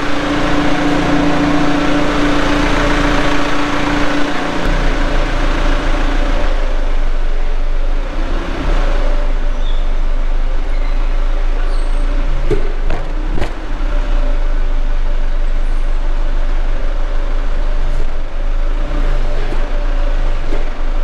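Forklift engine running steadily. A higher steady tone rides over it for the first four seconds or so, then stops, leaving a lower, deeper running. A couple of short knocks come near the middle.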